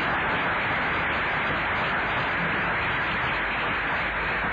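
Steady hiss of static-like noise, even and unchanging throughout.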